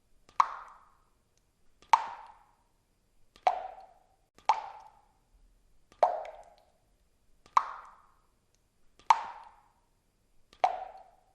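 Water drops falling one at a time into water. Each drop makes a sharp plop with a short ringing tail, eight drops about every second and a half.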